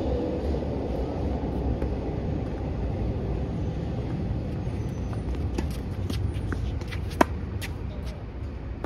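Tennis ball being hit back and forth: a few sharp pops of the ball off the racket strings and the court, the loudest about seven seconds in, over a steady low rumble.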